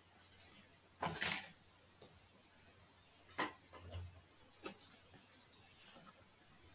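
Faint scattered clicks and knocks, about five of them, the loudest about a second in, over a low steady hum.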